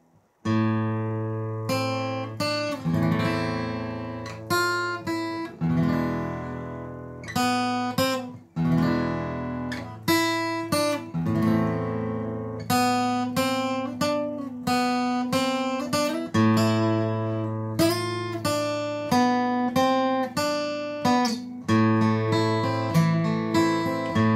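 Acoustic guitar playing an instrumental introduction: a run of chords struck one after another, each ringing out and fading before the next, starting about half a second in.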